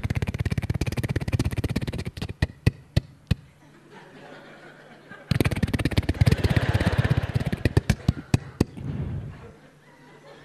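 Stand-up comedy audience laughing and clapping. The applause thins to a few last claps about two to three seconds in. A second burst of laughter and applause breaks out about five seconds in and fades away with scattered claps before the end.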